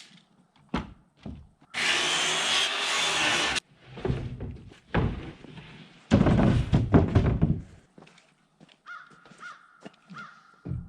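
Wood-framing work: a power tool runs steadily for about two seconds, then a run of heavy knocks and thunks on wood, with lighter knocks between.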